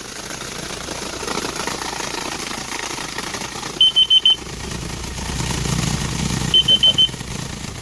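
Carbon monoxide alarm going off in groups of four quick, high-pitched beeps, twice, over the steady running noise of a vehicle engine: the alarm is sensing carbon monoxide from the exhaust.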